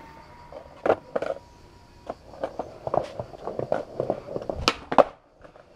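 Irregular clicks and knocks as a skateboard is handled and carried, with footsteps; the sharpest knocks come about a second in and near the end.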